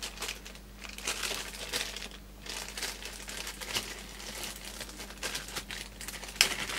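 Thin clear plastic bag crinkling and rustling as hands unwrap small parts from it, in irregular rustles with a sharper crackle near the end.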